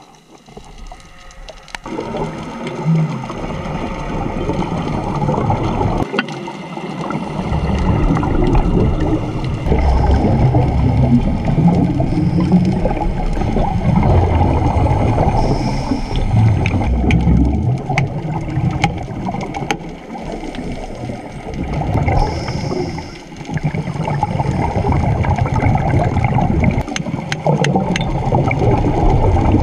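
Underwater sound of scuba divers breathing through their regulators: gurgling rushes of exhaled bubbles that swell and ease every few seconds, with scattered small clicks.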